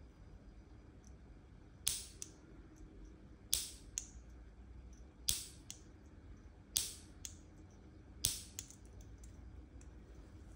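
The push-button piezo igniter on an MSR PocketRocket Deluxe stove being pressed five times, about a second and a half apart. Each press gives a sharp snap followed by a fainter click.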